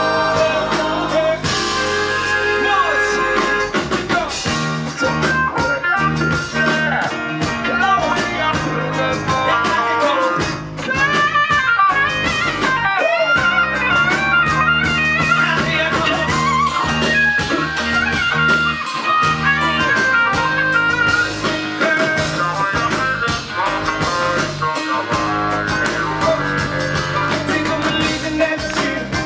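Live band playing loud rock music, with drum kit and keyboards over a steady beat.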